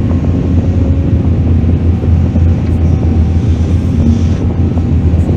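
Heavy diesel engine of a mining excavator running steadily, a deep low drone, with wind buffeting the microphone.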